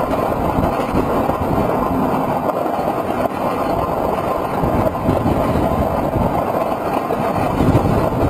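Roller coaster train in motion, heard from on board: a steady rush and rumble of the wind and the wheels on the track.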